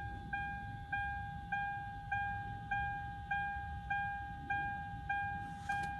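Lexus RX300's electronic warning chime ringing over and over, one pitch with a short fade, about ten chimes evenly spaced, sounding while the key sits in the ignition in the off position.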